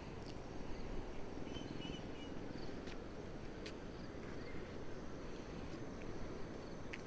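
Quiet outdoor ambience: a low steady rumble with a few faint, short bird chirps and occasional light clicks.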